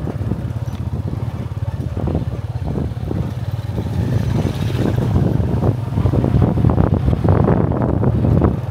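Small motorcycle engine running steadily while riding along a dirt road, with wind buffeting the microphone. Another motorcycle goes by about four seconds in, and the sound grows louder toward the end.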